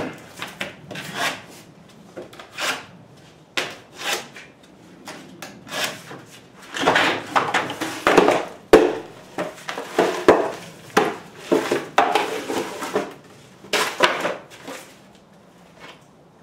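Drywall being scored with a utility knife and snapped into pieces: irregular rasping strokes of the blade across the paper facing, sharp cracks as the gypsum board breaks, and the scrape of broken pieces being handled.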